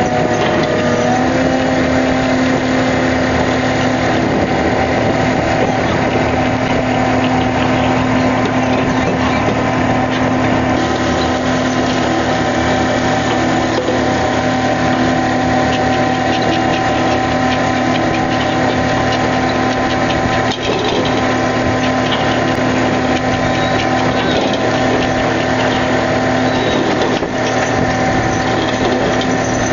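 Fishing boat's engine and deck machinery running steadily, a constant hum with a few held tones.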